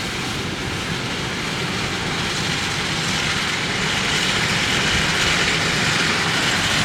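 John Deere X9 1100 combine harvester running while harvesting barley: a steady, dense machine drone with a low rumble. A hiss swells and the sound grows louder from about halfway through.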